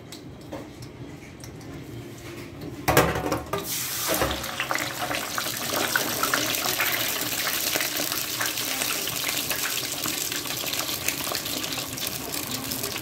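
A deep-fryer basket of raw fries and a veggie patty dropping into hot oil about three seconds in, and the oil then bubbling and sizzling hard around the food with a steady crackling hiss.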